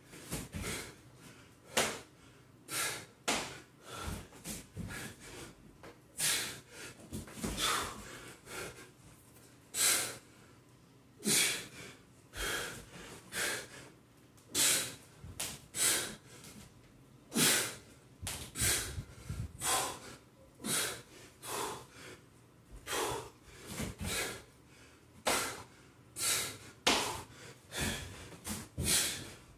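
A man breathing hard and fast from exertion during kettlebell swings, goblet squats and burpees: short, forceful breaths through nose and mouth, roughly one every second.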